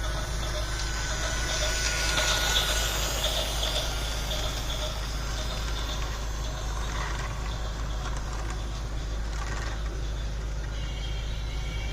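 A motor vehicle engine running steadily, with a constant low hum under noise that swells a little about two seconds in.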